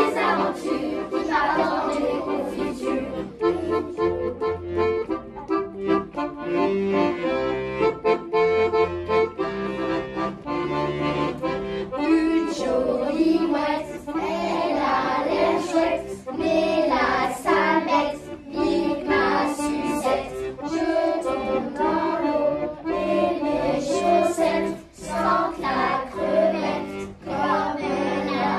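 A children's choir sings together over an instrumental accompaniment. For roughly the first twelve seconds the accompaniment's held chords and bass line carry the music, and then the massed children's voices come back in strongly.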